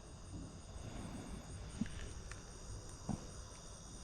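A few soft knocks from knife work on a triggerfish during filleting, over a steady faint high-pitched drone.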